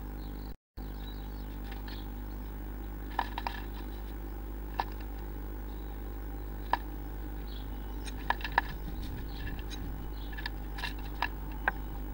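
A blue tit moving about inside a wooden nest box, its claws and beak tapping and scratching on the wood in short, sharp, irregular clicks, a few in quick succession. Under them runs a steady electrical hum, which drops out briefly about half a second in.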